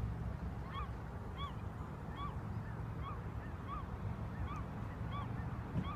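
A bird calling over and over, short rise-and-fall notes about two a second, over a steady low rumble.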